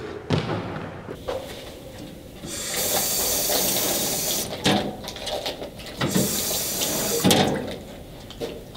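Stainless-steel drinking fountain running: a steady hiss of water starts a few seconds in, breaks off briefly, and stops near the end, with a few short knocks along the way.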